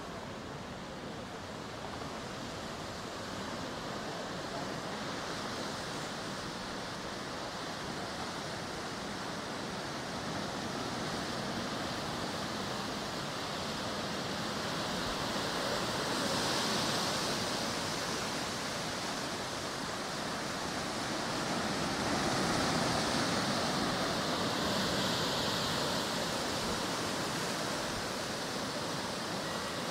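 Ocean surf washing onto the shore: a steady rushing that swells into slow, louder surges as waves come in, about halfway through and again near the end.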